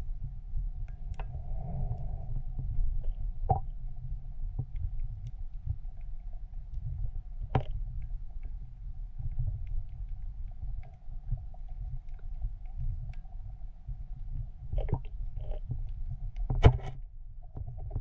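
Muffled underwater sound picked up by a camera held underwater: a steady low rumble with a faint steady hum above it, broken by scattered sharp clicks and knocks, the loudest near the end.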